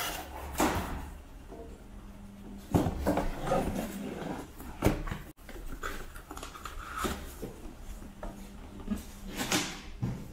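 Handling noise of a metal tin box and its cardboard packaging: rubbing and scraping with several knocks, the loudest about three and five seconds in.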